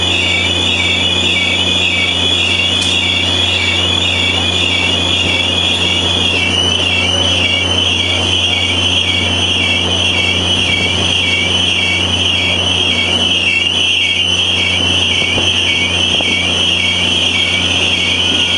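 Train wheels squealing against the rails as the excursion train rolls slowly through the rail yard: a continuous high-pitched squeal that wavers up and down about twice a second, over a steady low hum.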